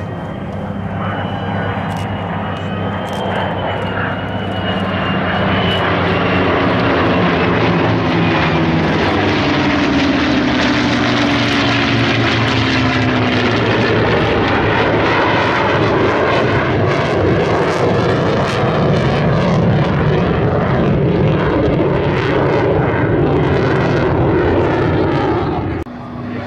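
F-35A Lightning II jet and propeller-driven warbird fighters flying over in formation. The steady drone of the piston engines, falling in pitch as they pass about ten seconds in, gives way to the F-35's loud jet rush, which cuts off suddenly near the end.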